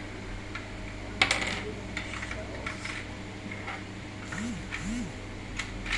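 Plastic Lego pieces clicking and knocking as brick-built shotgun shells are loaded into a custom Lego shotgun: a scatter of separate clicks, the sharpest about a second in.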